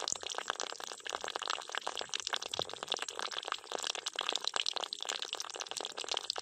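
A thin stream of water pouring from a miniature hand pump's spout into a small water tub, a steady splashing trickle.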